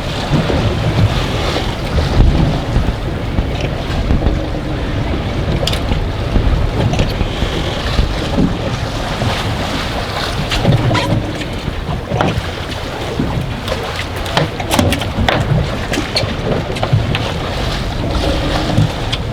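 Gusty wind buffeting the microphone on a small fishing boat in choppy water, a steady low rumble with waves slapping the hull and scattered sharp knocks.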